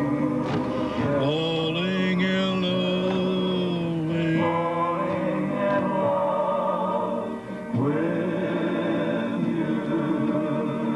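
Music with singing voices holding long, gliding notes, dipping briefly about seven and a half seconds in.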